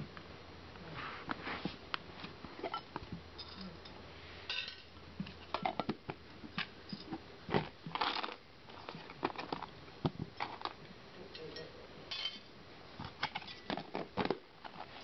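Clear plastic hamster ball rolling and bumping across a tile floor with a dwarf hamster running inside: irregular plastic clicks, rattles and knocks.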